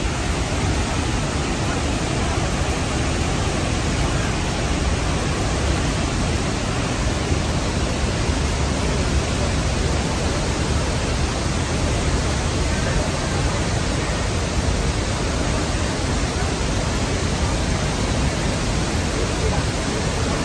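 Niagara's Horseshoe Falls heard close up: a loud, steady, unbroken rush of falling water and spray, heaviest in the low end.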